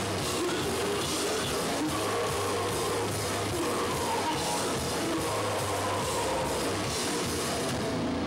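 Hardcore punk band playing live, loud and dense: distorted guitar, bass and drums, picked up by a Hi8 camcorder's microphone.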